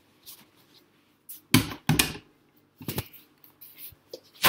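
A few short, sharp knocks and rustles: two close together about a second and a half in, another about a second later, and a louder one at the end. Quiet room tone between them.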